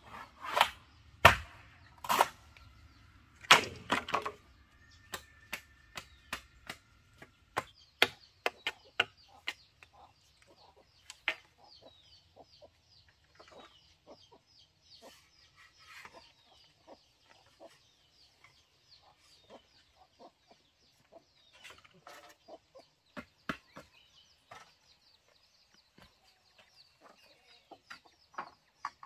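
Hand-tool work on bamboo: about five loud, sharp cracks in the first four seconds, then lighter scattered taps and clicks. Chickens cluck and small birds chirp steadily in the background.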